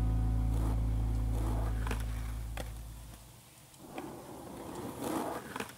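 Background music with a held guitar chord fades out over the first half. Then skateboards on concrete: wheels rolling and several sharp clacks of boards and trucks striking the ground, the loudest about five seconds in.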